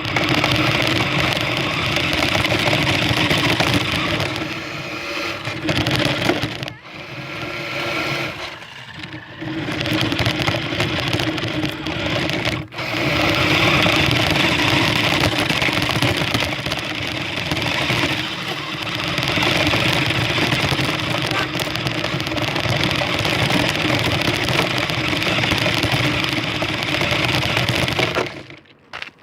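Toy remote-control car's small electric motor and gears whirring steadily as it drives, heard up close from a phone taped to the car. The whir drops away briefly about 7 and 13 seconds in and stops just before the end.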